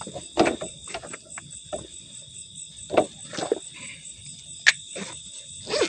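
Crickets or other night insects chirring in a steady high-pitched drone, with scattered short knocks and rustles from handling close by and one sharp click a little before the end.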